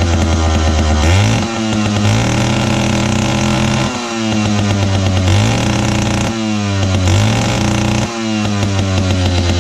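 Lancaster 655 chainsaw's two-stroke engine running on the bench. The throttle is opened and eased off again and again, so the engine speed steps up and falls back three times.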